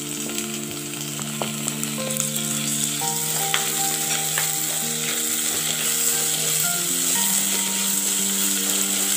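Sliced shallots, garlic, ginger and tomato pieces sizzling in coconut oil in a clay pot, stirred with a wooden spatula that scrapes and taps lightly against the pot now and then.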